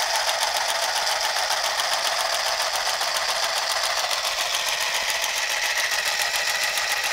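Handheld sewing machine running continuously, its needle mechanism clattering at a steady fast rate as it stitches a seam through fabric.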